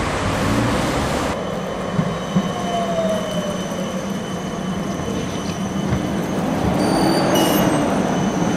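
Siemens Combino low-floor tram (Melbourne D2 class) approaching and passing close by on street track, its running noise growing louder near the end, with a few thin steady high-pitched whines over it. The first second or so is ordinary street traffic noise.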